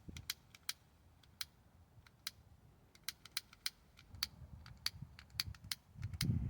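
Irregular sharp clicks, well over a dozen, some in quick pairs, over a low rumble of wind on the microphone that swells near the end.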